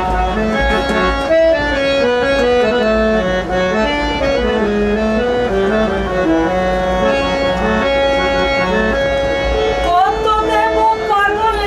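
Harmonium playing the melody of a Bengali Baul song between verses, in long held notes that step up and down, over the low rumble of the moving train. About ten seconds in, a voice slides up into a held note.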